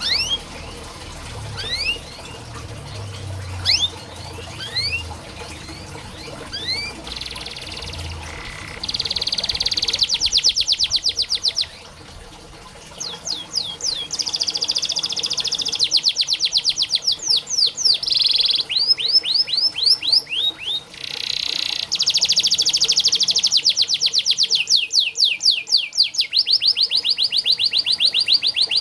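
Domestic canary singing: first a few quick upward-sweeping chirps, then long fast trills (rolls) of rapidly repeated notes, one after another with short breaks between.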